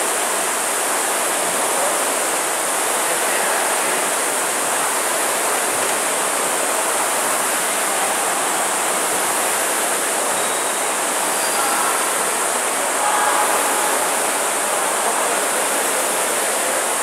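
Several air-braked rowing ergometers worked at race pace together, their fan flywheels blending into a steady, even whooshing noise.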